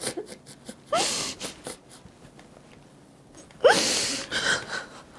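A woman crying: two sobs, about a second in and again near four seconds, each a short rising cry that trails off into a breathy, sniffling exhale.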